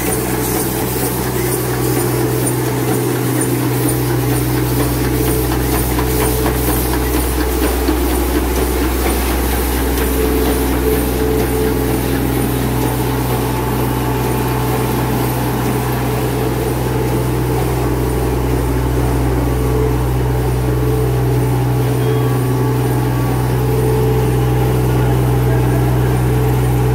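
Pull-out facial tissue making machine running: a steady, loud low mechanical hum of its motors and rollers, with no let-up.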